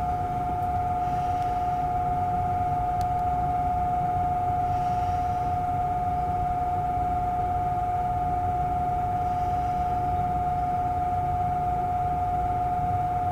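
A steady, unwavering high-pitched electronic tone over a constant low hum and hiss, with a faint click about three seconds in.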